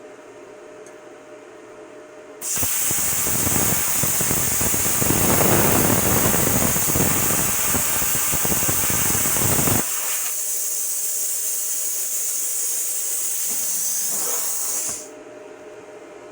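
Prime Weld Cut 50DP plasma cutter firing: about 2.5 s in the torch starts with a loud rush of air and a crackling arc for about seven seconds, then the arc stops and the air keeps hissing as post-flow for about five seconds before cutting off. The machine's cooling fan hums steadily beneath it.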